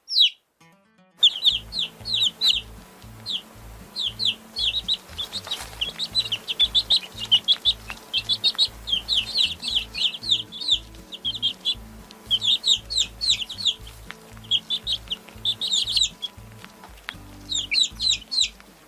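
Baby chicks peeping: runs of short, high, falling peeps with brief pauses between the runs.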